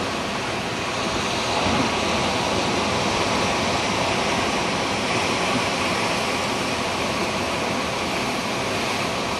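Steady rushing of ocean surf and wind, getting a little louder about a second and a half in.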